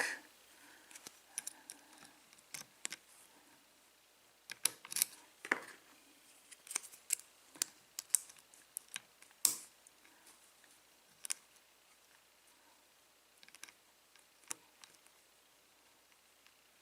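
Lock-picking tools being changed and worked in an American Lock 5200-series five-pin padlock: scattered small metallic clicks and scrapes, busiest in the middle and thinning out near the end.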